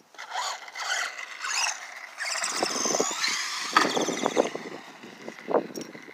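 A 1/18-scale Redcat Volcano 18 RC monster truck is driven hard, and its small electric motor and gears give a high whine that rises and falls in pitch. From about halfway in comes a run of clattering knocks as the truck bounces and tumbles on concrete.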